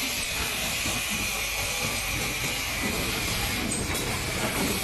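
Automated LED bulb assembly machine running: a steady hiss over a low mechanical rumble, with a couple of faint clicks about four seconds in.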